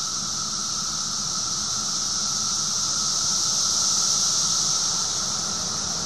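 Loud chorus of 17-year periodical cicadas: a steady, high-pitched droning whine that holds without a break.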